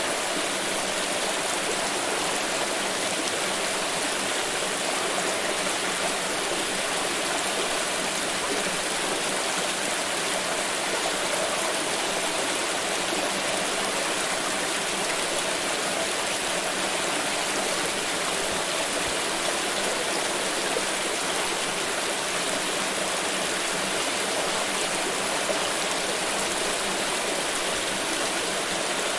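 Water pouring steadily: a continuous, even rush of splashing water with no breaks or changes.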